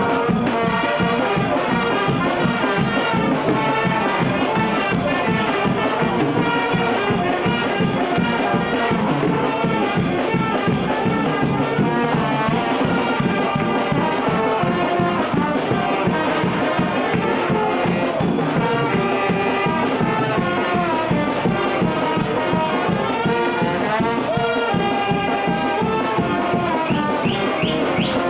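A festive banda brass band playing, trumpets and trombones carrying the tune over a steady, even beat.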